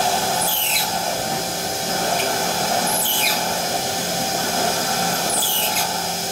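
Mazak Integrex J-300 multi-tasking machine tapping M10 threads at 1000 rpm: a steady machine hum with a short high-pitched sweep three times, about every two and a half seconds, one for each hole tapped.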